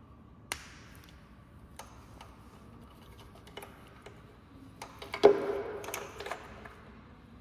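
Plastic wiring connectors of an electric bike's controller being plugged together and handled: a sharp click about half a second in, a few light ticks, then a louder clack with about a second of rattling and rustling just after five seconds in.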